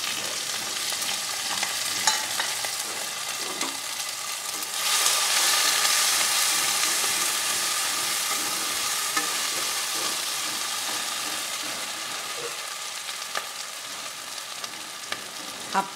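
Fried potatoes, tomatoes, green chillies and freshly added poppy seed paste sizzling in hot oil in a non-stick kadai while being stirred with a wooden spatula. The sizzle gets clearly louder about five seconds in, then slowly dies down.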